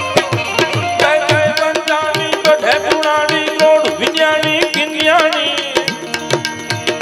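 Live Gujarati devotional music: a harmonium holding chords under a steady tabla beat and the sharp clicking of small hand cymbals, with a man's voice drawing out a long wavering phrase without words through the middle.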